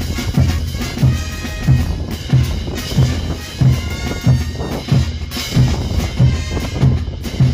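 Brass band playing, with a bass drum and crash cymbals keeping a steady beat of about one and a half strokes a second under held brass notes.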